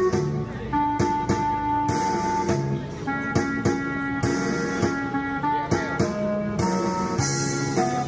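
Instrumental passage of a backing track: held melody notes changing about once a second over guitar and a steady drum beat, with no singing.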